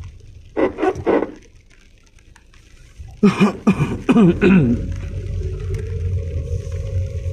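Inside a moving car's cabin, a low engine and road hum, with a man's voice heard briefly twice. It comes in two short bursts just before a second in, then a louder, longer one about three seconds in. After that the car's steady drone carries on.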